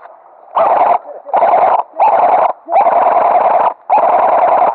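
Airsoft electric rifle firing five full-auto bursts, each about half a second to a second long, with the gearbox whining steadily under the rapid shots; very loud and close.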